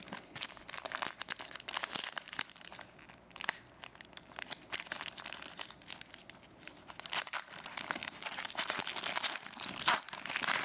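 A trading card pack's wrapper being torn open and crinkled by hand, a dense, uneven crackle with sharper rips, busier near the end.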